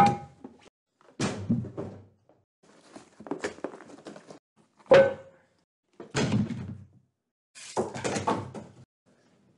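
Packaging being handled while unboxing a pan: a run of rustles and thunks from a cardboard box and a fabric drawstring bag, with two sharp knocks that ring briefly, near the start and about halfway through.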